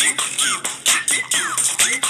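Background electronic music with a quick, steady beat and short sliding sounds that fall in pitch.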